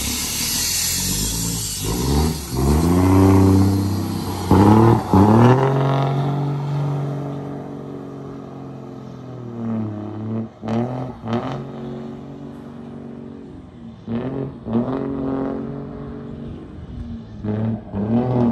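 Heavy diesel truck with a modified exhaust accelerating away through the gears: the engine note climbs and drops back at each shift, with sharp cracks around the later shifts, fading as it draws off.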